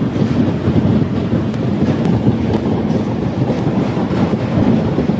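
Heavy hail coming down thick and fast: a dense, steady low rumble with faint ticks of single stones striking.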